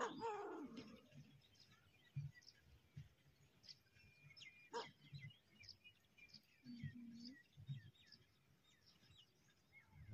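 Faint rural ambience: a falling animal cry about a second long at the start, then scattered small bird chirps and a single sharp knock near the middle.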